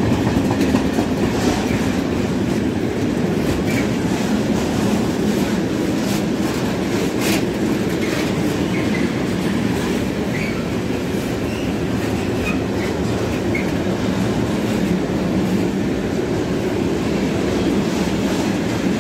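Freight train of open-top wagons rolling past: a steady rumble of wheels on rails with clickety-clack over the rail joints, one sharper click about seven seconds in, and a few brief high wheel squeals.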